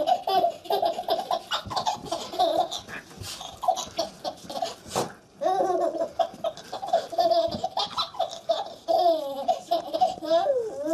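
Baby laughing in long runs of quick, repeated laughs, breaking off briefly about five seconds in before starting up again.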